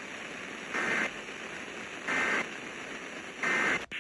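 Emergency Alert System end-of-message data bursts: three short, identical buzzy digital chirps about a second apart over steady radio static. They mark the end of the weather warning broadcast.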